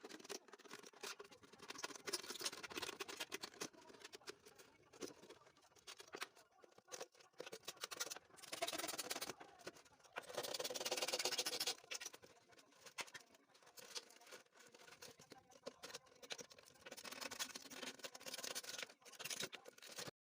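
Irregular crackling, clicking and scraping handling noises, with louder stretches of scraping about eight and ten seconds in.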